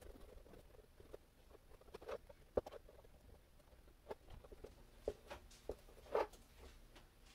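Paintbrush dabbing and stroking over tissue paper glued to a board: soft scratchy brushing with scattered light taps, a few of them louder.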